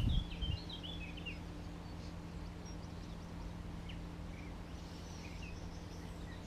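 Small birds chirping in short, scattered calls, a cluster in the first second and another around five seconds in, over a steady low hum and faint background noise. A brief low bump right at the start.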